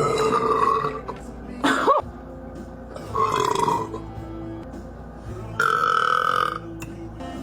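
A girl belching really loud, four drawn-out belches in a row: the first fading about a second in, a short one with a rising pitch near two seconds, then two longer ones, the last near the end lasting about a second.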